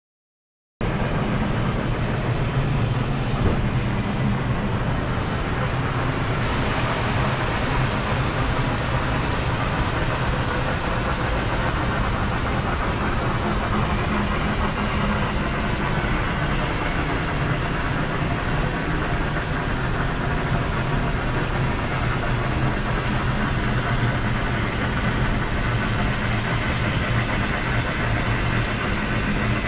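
Steady rushing noise with a low rumble, starting abruptly under a second in and holding level without a break.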